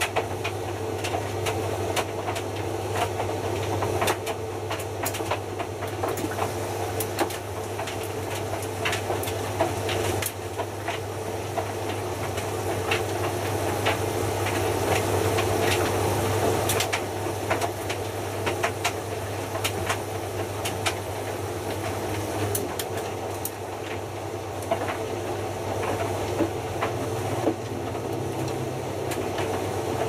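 Hotpoint Futura HF8B593 front-loading washing machine's drum tumbling wet laundry in water, with a steady motor hum under the swish of water and cloth and frequent light clicks. These are the heating tumbles of the Cotton 90 programme, as the wash water slowly heats toward 90 °C.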